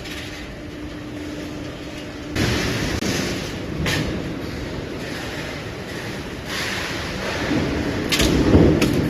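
Factory stamping-press noise: a steady mechanical rumble that grows louder about two seconds in, with sharp metallic knocks around four seconds in and twice near the end.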